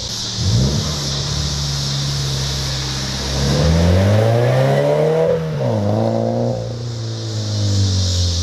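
2014 Subaru BRZ's flat-four engine heard through an MXP Comp RS cat-back exhaust while driving. It holds a steady note, then rises in pitch for about two seconds as the car accelerates. It drops quickly back to a lower steady note past the middle.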